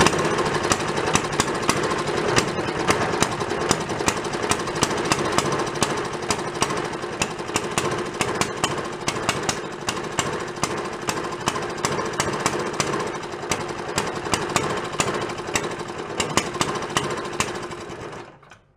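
Antique single-cylinder Briggs & Stratton engine bursts into life and runs with a rapid, sharp firing beat while its carburetor is adjusted, then stops suddenly near the end. Its carburetor is wet and dripping fuel, which the owner suspects is flooding it.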